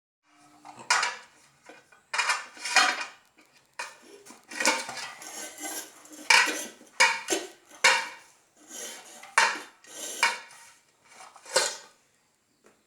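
Irregular clattering and clinking of hard objects knocked together, about a dozen sharp strikes with short tails at uneven intervals, stopping about a second before the end.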